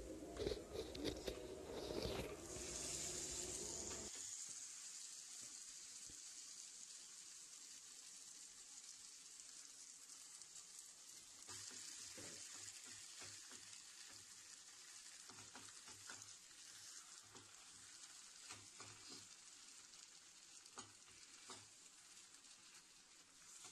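Mashed boiled tapioca hitting hot oil in a coated frying pan and sizzling faintly, then stirred and folded in with a silicone spatula, with light scrapes and taps against the pan. The sizzle is strongest in the first few seconds, then settles to a faint steady hiss.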